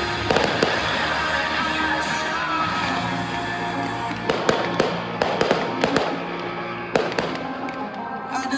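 Fireworks going off in a series of sharp bangs and crackles, clustered about halfway through, over music playing.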